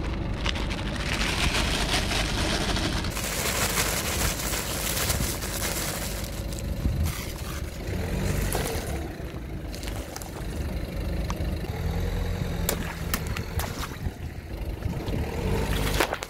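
Car engine running at low speed while the tyre rolls onto a pile of dried petals, crushing them, with a few sharp cracks. A plastic bag rustles and crinkles for the first few seconds.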